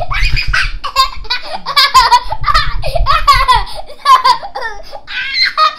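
A young boy laughing hard and high-pitched, peal after peal.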